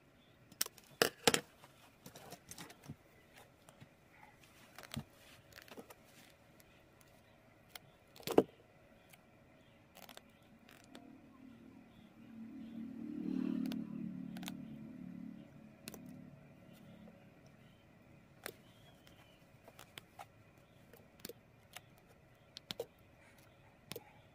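Quiet, scattered clicks and taps of hand work with wire and small tools, the sharpest about eight seconds in. A low rumble swells and fades in the middle, over a faint steady hum.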